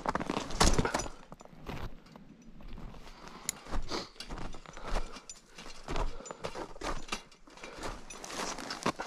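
Crampon footsteps crunching and knocking irregularly on snow and ice, with climbing hardware clinking. The loudest knocks come about half a second to a second in.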